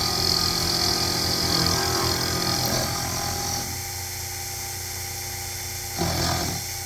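Sherline benchtop milling machine running, its end mill cutting a keyway slot with a steady motor hum and a hiss of cutting. The cutting noise drops away a little past halfway, leaving the spindle motor humming. A brief louder burst of noise comes near the end.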